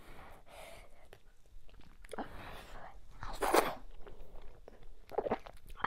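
Close-miked eating sounds of fufu with okra soup: wet mouth noises and chewing in short bursts, the loudest about three and a half seconds in as the food goes into the mouth.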